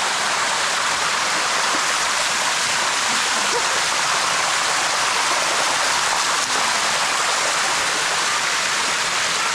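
Steady rushing of a waterfall, water pouring and splashing over rock close by.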